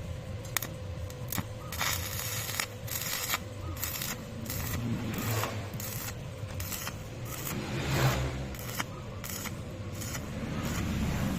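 Stick welding arc crackling and sputtering in irregular bursts, with sharp pops scattered through it and a faint steady hum underneath.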